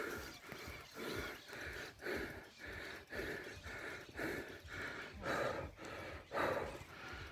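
A cyclist breathing hard and fast in a steady rhythm of loud puffing breaths while pedalling in a cross-country mountain bike race.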